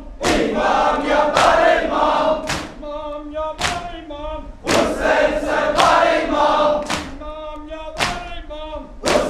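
Shia mourners' matam: a crowd of men chanting a Muharram lament in chorus, answering a single lead voice. Their palms strike their chests together about once a second.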